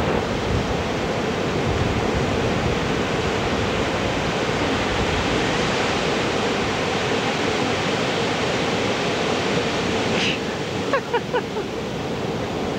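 Ocean surf breaking and washing up the beach, a steady rushing noise. It dips a little about ten seconds in, and a few faint short chirps come over it near the end.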